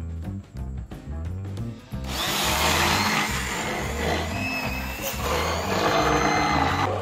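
Immersion blender motor running in a thick mango and milk mixture, starting about two seconds in and stopping near the end, over background music with a steady beat.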